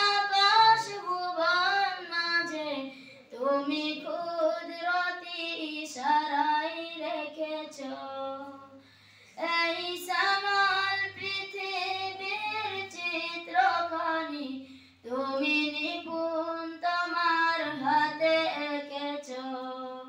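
A high child's voice singing a Bangla gojol (Islamic devotional song) unaccompanied, in long held melodic phrases, with a short break about nine seconds in and another about fifteen seconds in.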